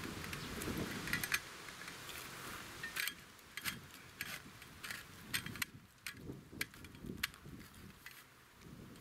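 Irregular light clicks and knocks of a small black folding camp table being unfolded and its legs snapped into place, over a faint low rumble in the first second or two.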